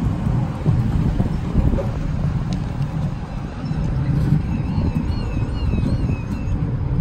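A Bernmobil Be 4/8 articulated low-floor tram passing close on a curve: a steady low rumble of its wheels and running gear on the rails. About five seconds in, a faint wavering high tone comes and goes for about two seconds.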